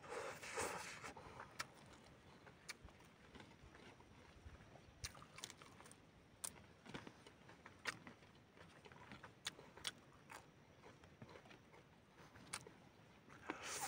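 Quiet close-up eating sounds: noodles slurped in at the start and again near the end, with sparse wet mouth clicks and smacks of chewing in between.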